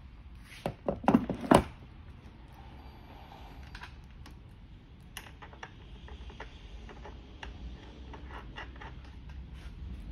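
Knocks and clicks of a hollow plastic toy-quad wheel being handled and pushed onto its axle: a short burst of loud knocks about a second in, then scattered light clicks.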